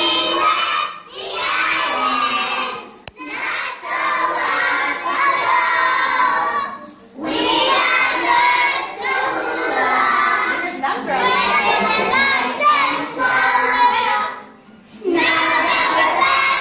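A group of small girls singing and shouting a song together in unison, loud, in phrases with short breaks between them.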